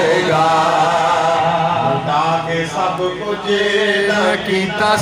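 A man chanting devotional verse (manqabat) into a microphone, in long held notes that slide up and down in pitch.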